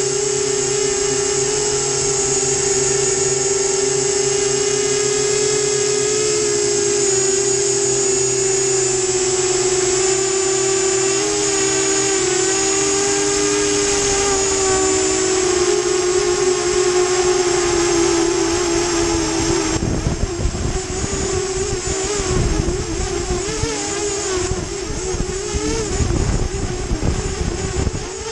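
FT250 FPV quadcopter's motors and propellers whining steadily, the pitch wavering with throttle. About twenty seconds in, the whine drops in pitch and grows uneven as the quad comes down, with a low rumble of wind buffeting the onboard camera's microphone.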